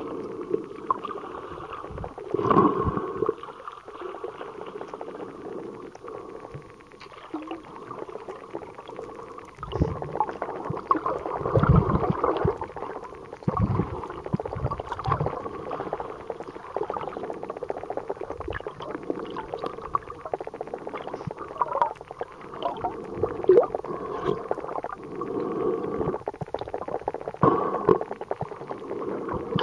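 Muffled underwater sound picked up by a camera in a waterproof housing: irregular rushing and gurgling water over a steady low hum, with a few louder low thumps.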